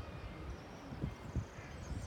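Wind rumbling irregularly on the microphone, with faint high bird calls above it.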